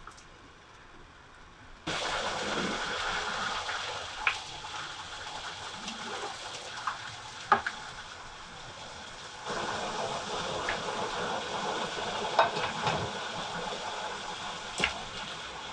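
Water boiling in a saucepan, a steady bubbling hiss that starts suddenly about two seconds in. A few sharp clinks of a slotted spoon against the pot as cauliflower florets are lowered into the water.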